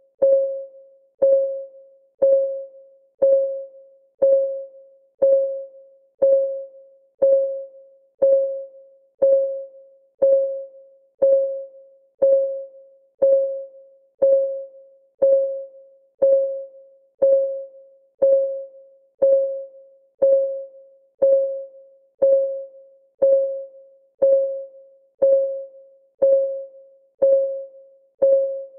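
Countdown timer's clock-ticking sound effect: a single pitched tick once a second, each struck sharply and ringing briefly before it dies away, in a perfectly even rhythm.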